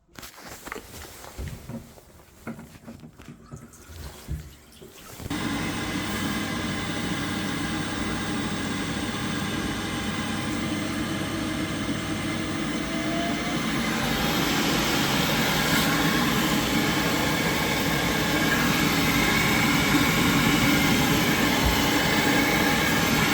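Worcester Bosch combi boiler powered up with its cover off: a few clicks, then its fan starts about five seconds in and runs steadily, speeding up with a rising whine around halfway through. This is the boiler cycling through ignition attempts that end in lockout, a fault later traced to a snapped gas valve outlet pipe.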